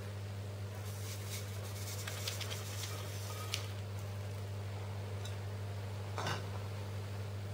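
Steady low hum with a few light clicks and taps of kitchen utensils, and a short soft rustle near the end.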